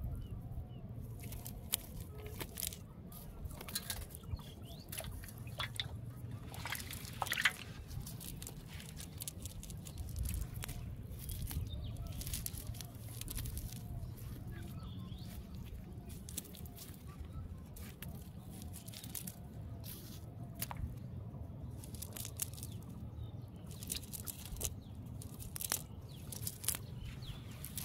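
Wet clicking, crackling and squelching as hands work slippery fish free of a nylon fishing net, over a steady low rumble.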